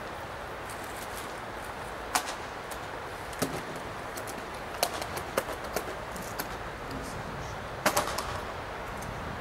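A steady hiss with about half a dozen sharp clicks and taps scattered irregularly through it, the loudest a quick double click near the end.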